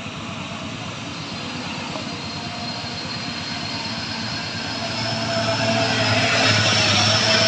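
Mitsubishi truck's diesel engine running under power, growing steadily louder as the truck approaches and pulls past.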